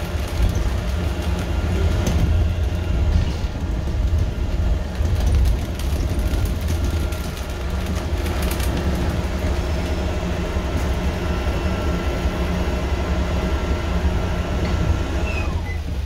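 A London bus heard from inside while moving: a steady low engine and road rumble, with a few short rattles and clicks from the bus.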